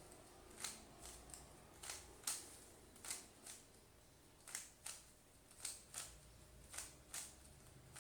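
Plastic Rubik's cube layers being turned by hand, with faint dry clicks, about a dozen of them, many in close pairs.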